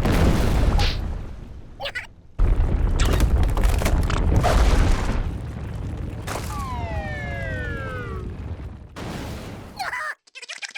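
Cartoon slapstick sound effects: two loud stretches of deep, rumbling crash noise, then a long falling whine of about two seconds, with a short squeak just before the end.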